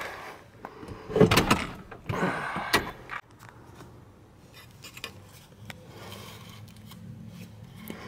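Unbolted car seat being tipped back: two bursts of scraping and rubbing with clunks in the first three seconds, then only faint rustling and small clicks.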